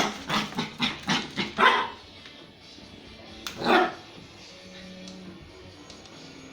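A pet dog barking at a hair dryer: a quick run of about six barks in the first two seconds, then a single bark about three and a half seconds in.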